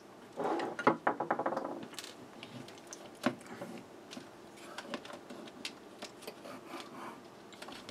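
A small screwdriver undoing a screw in the plastic end cap of a fluorescent light fixture, with a brief squeak near the start. Then scattered clicks and ticks as the plastic end cap is worked loose and pulled off the metal housing.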